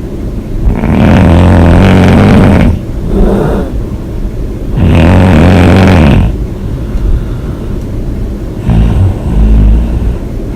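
A woman snoring heavily: three loud, rough snores about four seconds apart, each lasting a second or two, with softer breathing sounds between them.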